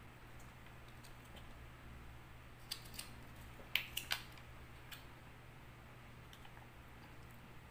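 Foil juice pouch crinkling as it is handled while drunk through a straw: a few short sharp crackles, clustered between about three and four seconds in, over a faint low hum.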